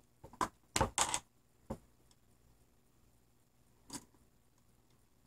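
Hand wire cutters snipping through the cable's heavy copper leads: four or five sharp snips and clicks in the first two seconds, the loudest about a second in, then one more click about four seconds in.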